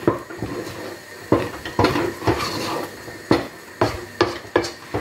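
Wooden spoon stirring and mashing stiff maize-flour ugali dough in a metal pot, knocking against the pot about eight times at an irregular pace, with scraping in between.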